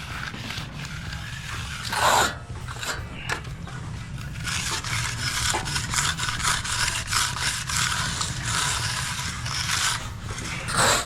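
A hand tool scraping and rubbing over a concrete surface in repeated strokes, with louder strokes about two seconds in and near the end.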